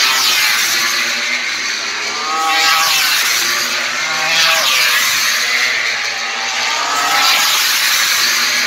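MotoGP racing motorcycles' four-cylinder engines accelerating hard out of a corner, one bike after another, loud. Their pitch rises and drops back again and again as they shift up through the gears.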